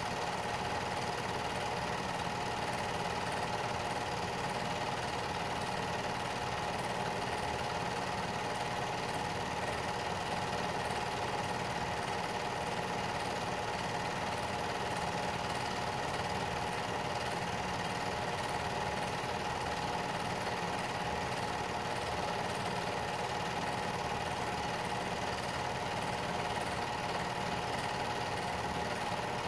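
Home-movie film projector running with a steady mechanical whir.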